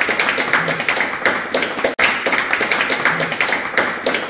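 A group of people applauding: dense, irregular hand claps, cut off for an instant about two seconds in.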